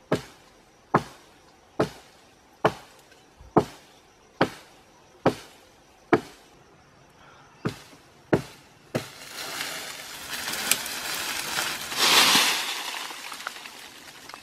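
A sharp knock repeating about once a second, some ten times, then a rustling crash of leaves and branches that swells and fades over a few seconds.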